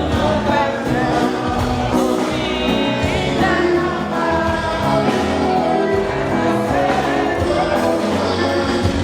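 Music with singing: a song with voices over steady instrumental backing.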